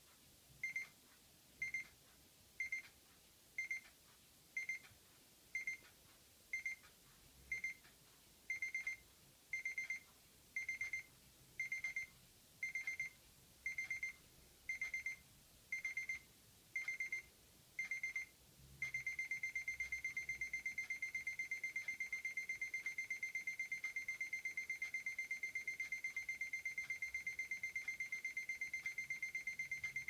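Electronic alarm clock going off with an escalating alarm: one steady beep tone repeating in short bursts about once a second, the bursts growing longer. About two-thirds of the way through it switches to fast, continuous beeping.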